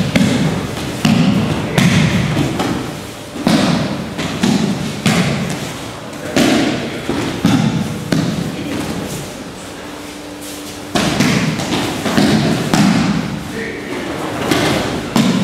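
Aikido breakfalls: bodies thrown and landing on the training mats again and again, a string of thuds and slaps about once a second from pairs across the hall, with a short lull around the middle.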